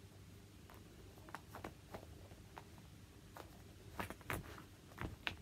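Faint handling noises: soft rustles and light taps as a cloth hand puppet is moved about over bedding, a few slightly louder ones about four seconds in and again about five seconds in, over quiet room tone.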